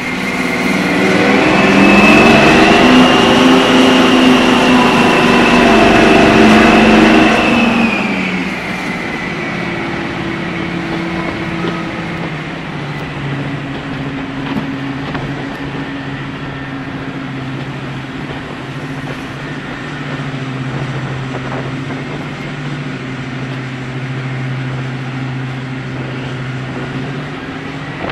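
Class 55 Deltic D9016's Napier Deltic two-stroke engines working hard, heard close up from the cab side, with a high whistle over the engine note. After about eight seconds the power comes off: the whistle falls away and the engines settle to a quieter, steady lower note as the locomotive rolls on.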